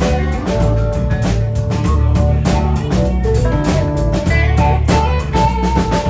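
Live blues-rock band playing: electric guitars, keyboard and drum kit keeping a steady beat, with a harmonica played into a vocal mic.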